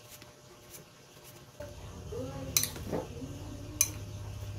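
A metal utensil clinks sharply twice against a ceramic bowl of sliced green mango, over a steady low hum that starts about a third of the way in.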